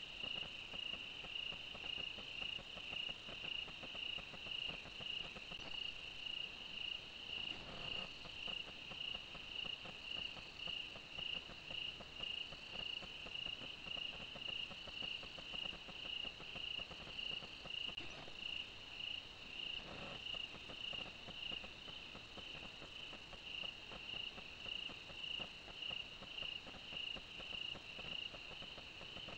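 Night crickets chirping in a steady, even rhythm, about one high chirp a second.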